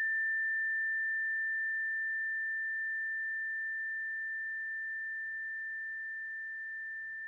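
Tone bar, a metal bar mounted on a wooden resonator, ringing on after being struck: a single pure bell-like tone, slowly fading away.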